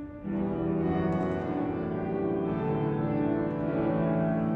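Church keyboard playing slow, sustained chords that come in just after the start and change a few times.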